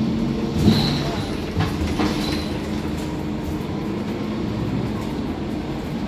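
Mercedes-Benz OC500LE city bus running under way, heard inside the passenger cabin: a steady low engine and drivetrain hum with road noise. A few sharp knocks and rattles come in the first two seconds, with two short high squeaks among them.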